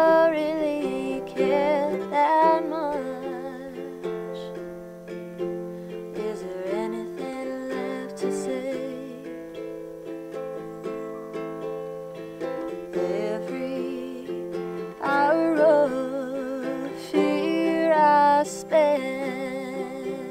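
A woman singing a slow song with vibrato while strumming a small acoustic guitar. Her voice comes and goes between phrases, with a longer stretch mid-way where the guitar carries on mostly alone.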